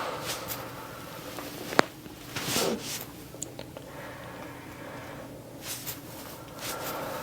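A single sharp crack about two seconds in: a joint popping during a chiropractic back adjustment. Softer rustling and swishing runs around it.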